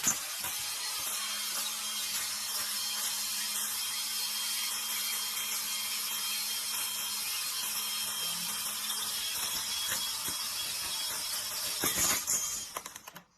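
A machine running steadily with a loud hissing noise and a faint hum under it, briefly louder near the end before cutting off.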